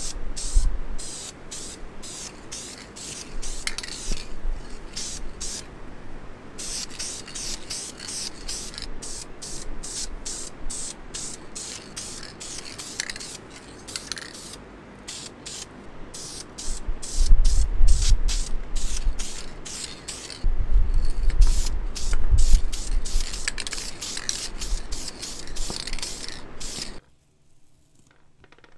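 Paint being sprayed in many short, rapid hissing bursts, with low rumbling bumps a little past the middle. The spraying stops suddenly about a second before the end.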